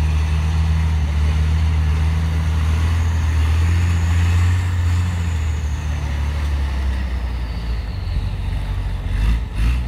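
Competition trial truck's engine pulling hard as the truck wades out of a water pit and climbs a muddy bank, a strong steady drone that eases after about six seconds. A faint high whine rises and falls midway, and a few thuds come near the end.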